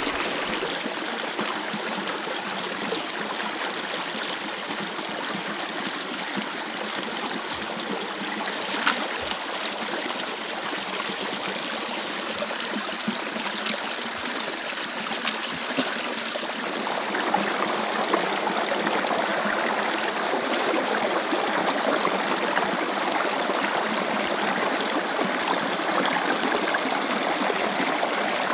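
Shallow rocky stream running over stones, a steady rush of water that grows louder a little over halfway through.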